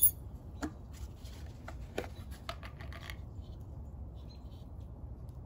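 Light clicks and taps of small objects being handled, including a tin and its lid, with a sharp click right at the start, over a low steady rumble.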